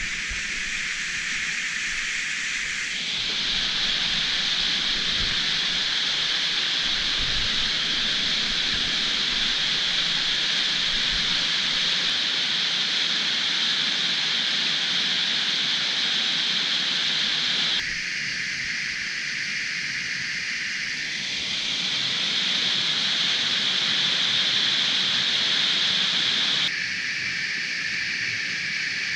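Underground stream cascading down a narrow cave passage: a steady, hissing rush of water. Its tone and loudness shift abruptly a few times.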